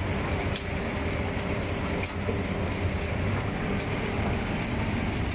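French fry production line machinery running: mesh-belt conveyors and their motors make a steady low hum, with a few light clicks and rattles.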